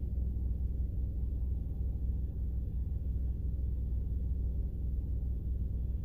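Steady low engine rumble of a stopped vehicle, heard from inside the cab.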